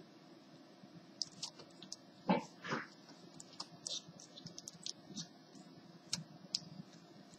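Laptop keyboard keys clicking irregularly as fingers press the HP 6530b's replacement keyboard down to seat it in the laptop's deck, loudest about two and a half seconds in.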